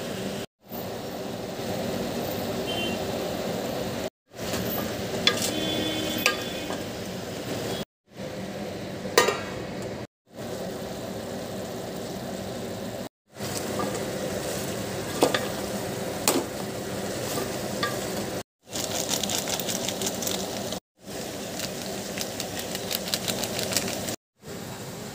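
Chicken cooking in an aluminium pot: sizzling and stirring, with sharp clicks of a spoon against the pot, over a steady hum. The sound comes in short clips cut apart by brief silences.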